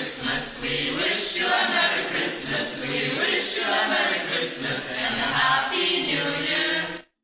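A small mixed group of young voices singing a song together, without clear accompaniment; the sound cuts off abruptly about seven seconds in.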